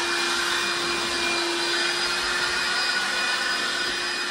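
DEWALT 20V Max cordless hand vacuum running steadily as its nozzle is worked over a floor: a constant motor whine over a rush of sucked air.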